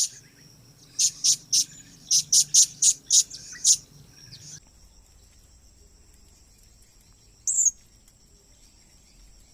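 Blue-crowned hanging parrots giving a quick series of short, sharp, high-pitched calls, stopping abruptly about four and a half seconds in. A steady, high insect-like trill follows, with one more short call near the end.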